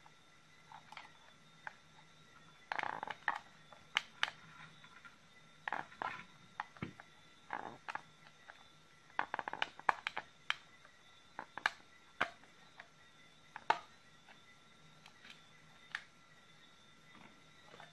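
Small screwdriver clicking and scraping against a lithium-ion cell and its plastic holder inside a Makita 18 V battery pack, working to pry out a cell that solder is still holding. The sound is scattered light clicks and short scrapes, in a few busier bursts.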